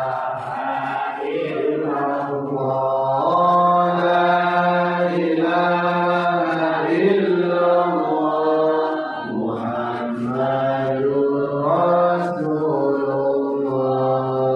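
Male chanting of Islamic dhikr, in long, drawn-out melodic phrases held on steady notes that step in pitch every couple of seconds.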